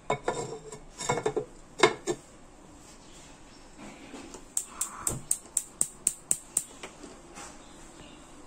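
A ceramic lid set onto a clay cooking pot, clinking against the rim a few times. A few seconds later a gas stove's igniter clicks about ten times in quick succession, roughly four a second, as the knob is turned to light the burner.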